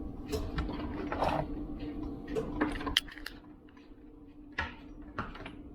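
Recorded campfire crackling played back through the small speaker of a homemade fireplace-lamp sound module: irregular sharp pops and crackles, the sharpest about three seconds in and sparser after, over a faint steady hum.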